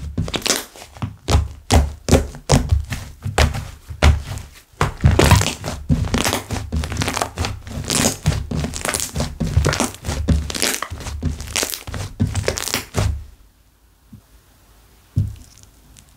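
Hands squishing and pressing slime, making a rapid run of sticky pops, clicks and crackles. The sounds stop about three seconds before the end, and one more soft click follows.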